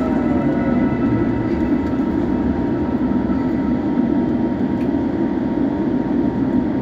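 Steady cabin noise of an Airbus A350 on the ground just after landing: a dense low rumble with faint steady tones, and a falling whine that dies away in the first second.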